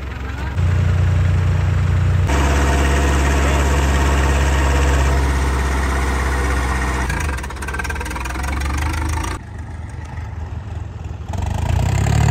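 TAFE Massey Ferguson 9500 DI tractor's diesel engine revved hard to push smoke puffs out of its upright exhaust stack. The engine note steps up about half a second in and again near two seconds, falls away around seven seconds, and picks up again near the end.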